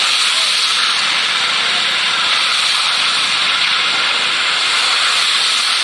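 Loud, steady hiss of gas escaping under pressure from a tanker.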